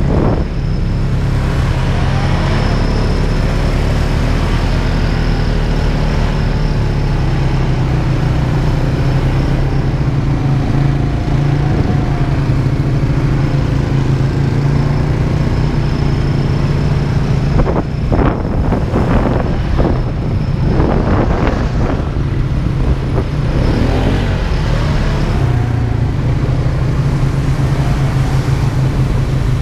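ATV engine running steadily at a constant pace, heard from on board the quad. A few rough, noisy bursts come about two-thirds of the way through.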